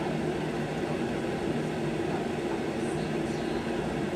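A steady, low mechanical drone at an even level.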